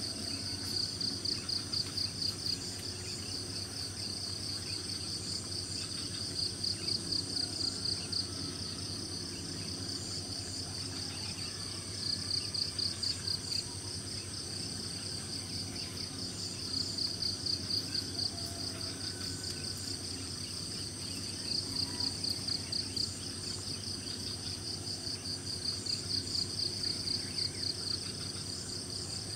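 Insects calling: a steady high trill, with a pulsing chirp over it that comes in bursts of about a second and a half, repeating every four to five seconds. Faint bird calls sound underneath.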